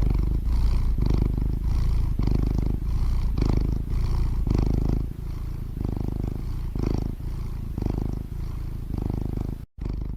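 A cat purring: a low rumble that swells and fades with each breath, about once a second. It cuts off near the end.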